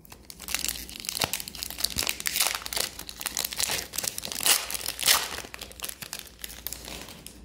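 Foil wrapper of an Upper Deck hockey card pack crinkling and crackling in the hands as the pack is opened, with a steady run of irregular crackles.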